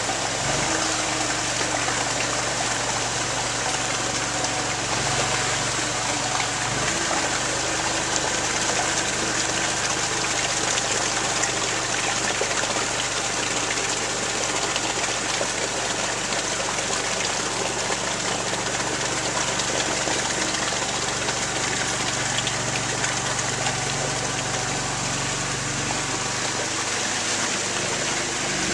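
Small engine of a tracked Amphicat amphibious ATV running steadily under load as it churns through shallow muddy water, with a constant rush and splash of water from the tracks.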